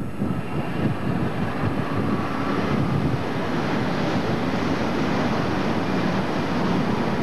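A diesel-hauled freight train passing close by: the locomotive goes past, then a long rake of loaded hopper wagons rumbles and clatters steadily over the rails.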